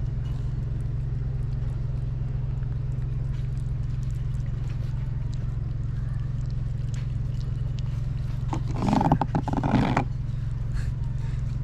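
Kittens eating wet cat food from a plastic plate, small clicks and licks, over a steady low rumble. A louder noise lasting about a second and a half comes about nine seconds in.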